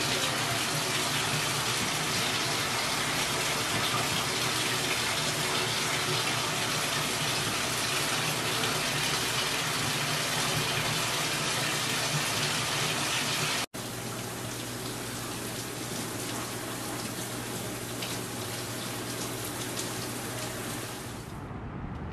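Shower running behind a closed curtain: a steady hiss of water spray. About 14 seconds in it cuts out for an instant and continues a little quieter with a low steady hum, giving way near the end to quieter outdoor sound.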